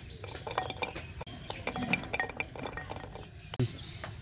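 Metal pots, dishes and utensils clinking and knocking together in a series of irregular light knocks with brief ringing, one louder knock near the end.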